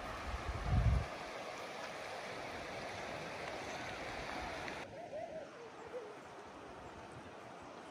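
Steady rush of flowing stream water, with a low buffet of wind on the microphone about a second in. Partway through it cuts abruptly to a quieter, more distant rush.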